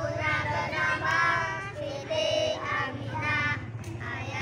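A group of young children singing a scout cheer song (yel-yel) together.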